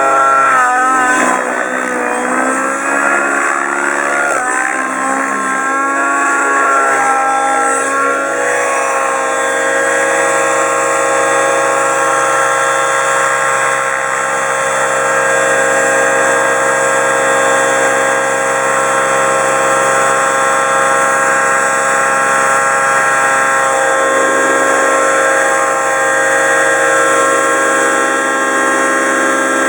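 Align T-REX 700N nitro RC helicopter's glow engine and rotor running in flight, a steady whine with many overtones that wavers up and down in pitch for the first several seconds and then holds steady. It is flying with its muffler loose, a mounting screw having fallen out, the cause of the odd noise that made the pilot land it.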